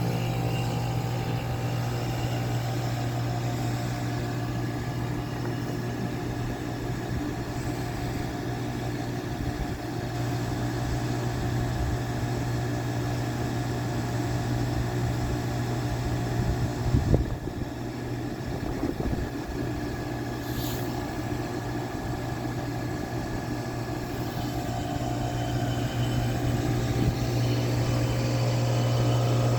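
3-ton SureComfort SP14 heat pump outdoor unit running with a steady, low mechanical hum, with a short, sudden louder noise a little past halfway through.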